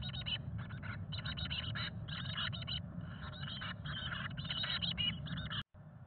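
Chickadee nestlings begging inside a wooden nest box: rapid clusters of short, high-pitched calls, with scratching and rustling as they jostle on the nest. The sound cuts off abruptly near the end.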